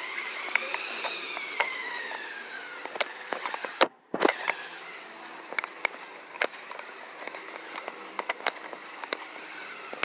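Motor of a remote-control RZR XP side-by-side model whining, rising in pitch and then falling away over the first couple of seconds as it speeds up and slows, over a steady hiss with many scattered sharp clicks. The sound cuts out briefly about four seconds in, then the hiss and clicks go on more quietly.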